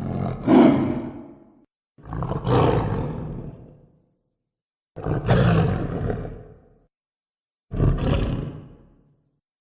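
Four animal roar sound effects in a row, each one loud at the start and fading out over a second or two, with dead silence between them.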